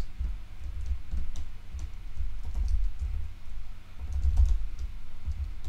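Typing on a computer keyboard: a run of irregular keystrokes with dull low thuds.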